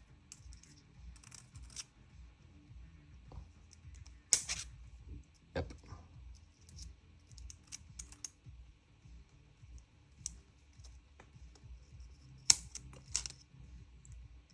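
Small parts clicking and scraping as a spring is worked around a notch in an airsoft gun's trigger housing, with sharper clicks about four seconds in and near the end.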